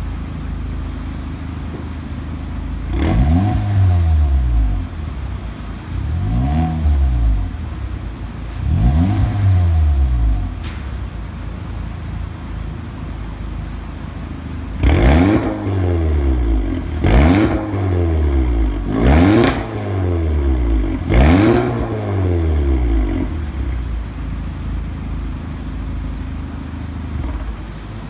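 Audi TT 45 TFSI's turbocharged 2.0-litre four-cylinder, breathing through an Fi Exhaust valved system with the valves closed, idling and free-revved. Three revs a few seconds apart, then four harder revs about two seconds apart, each rising and falling back to idle.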